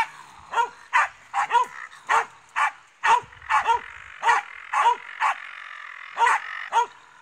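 A Finnish Spitz barking at a raccoon dog in a rapid, steady series of sharp barks, about two a second, with a fainter continuous sound between them.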